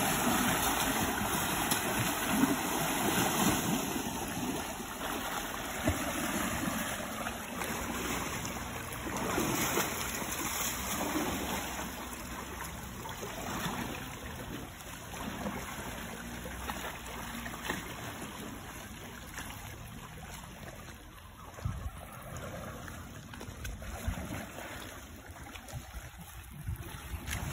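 Muddy water splashing and sloshing as Asian elephants wallow and roll in a shallow pool, louder in the first half and quieter later.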